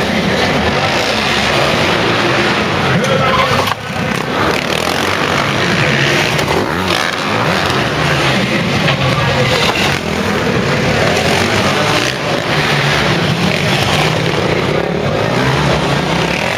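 Several dirt bike engines revving up and down as they ride and jump ramps, inside a large indoor arena hall.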